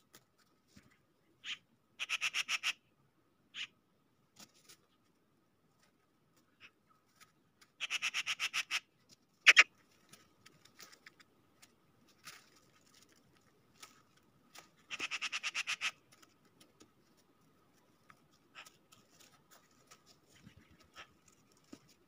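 Magpies chattering: three rattling bursts of rapid harsh notes, each about a second long, with a few single calls between. A loud sharp click about halfway through, and faint ticks of birds pecking on the snow.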